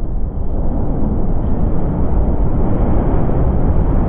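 Steady, deep rumble of a steel-framed power-station building collapsing in an explosive demolition, with no separate bangs.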